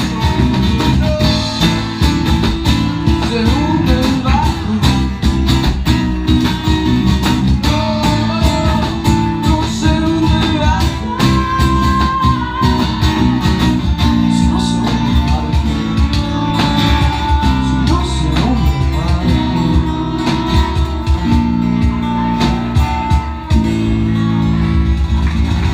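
Live band playing a guitar-led Latin song, with plucked guitar, bass and percussion keeping a steady beat.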